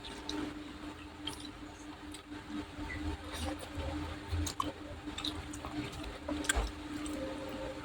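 Close-miked eating sounds of Thai instant noodles: wet chewing with small mouth clicks and smacks at irregular intervals, over a faint steady hum.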